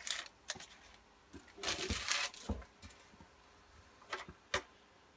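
Foil trading-card booster pack being torn open and crinkled in two short bouts, then two sharp taps near the end.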